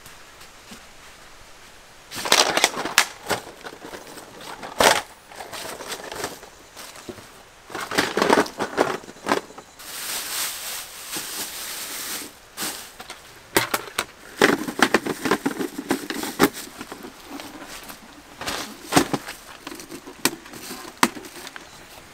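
Plastic bag and tent fabric rustling and crinkling, with sharp clicks and knocks as the plastic parts of a folding portable camping toilet are handled and snapped together.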